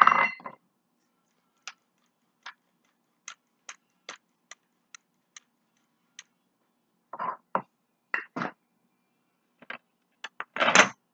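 Hand-turned pepper grinder giving a run of light ticks, about two to three a second. A loud clatter of a container being handled comes at the start, and a few knocks and rattles follow after about seven seconds, with the loudest near the end.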